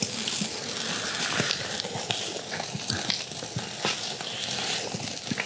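Heart skewers sizzling on a charcoal grill, a steady hiss with many small crackles and pops.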